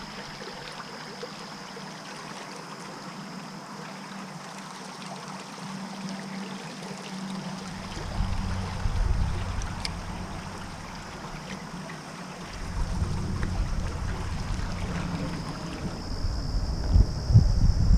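Waterside ambience: a steady rush of flowing creek water under a constant high insect drone, with irregular low rumbling on the microphone from about eight seconds in.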